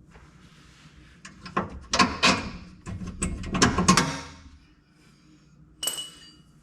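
Irregular metal clanks and rattles of hand tools and loose bolts as the bumper bracket bolts come out under the truck, ending in a short metallic ring near the end.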